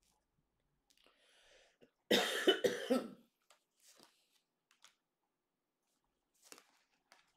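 A woman coughing in a short fit of several quick coughs lasting about a second, about two seconds in. Faint taps of tarot cards being handled follow.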